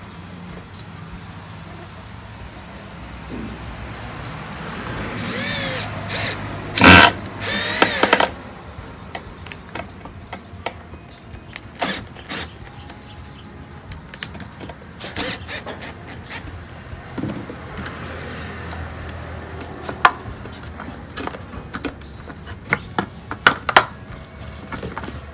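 Power drill driving a screw into bamboo, running in a few short bursts that rise and fall in pitch about a third of the way in. Scattered clicks and knocks follow.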